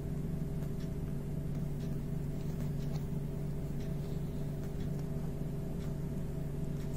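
Steady low machine hum with a few faint light ticks.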